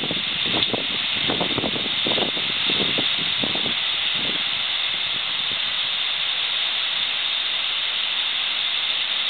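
Heavy tropical rain falling in a steady hiss, with uneven lower-pitched splashing sounds over the first four seconds or so.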